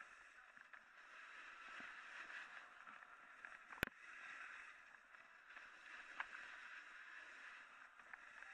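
Faint hiss of a snowboard sliding and carving over wet, rough snow, with one sharp click just under four seconds in.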